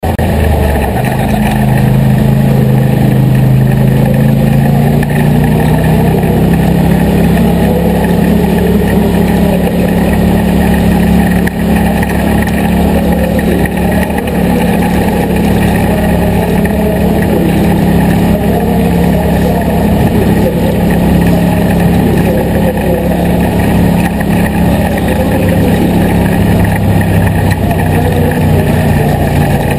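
Midget race car's four-cylinder engine, heard close from a camera on the car's roll cage, running steadily at part throttle at pace speed. Its pitch rises a little about five seconds in, then holds.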